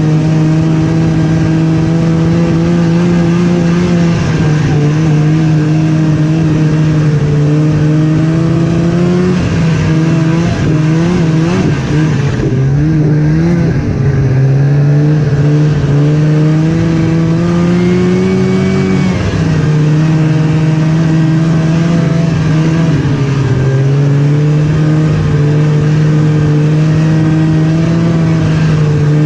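Snowmobile engine running loud under way. Its pitch holds steady for stretches, wavers up and down with the throttle around the middle, then rises and drops back to a steady drone.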